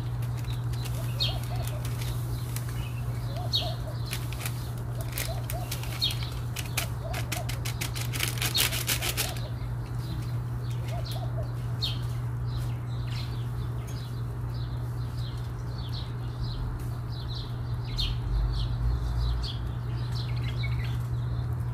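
Small birds chirping again and again over a steady low hum, with a quick fluttering rattle about seven to nine seconds in.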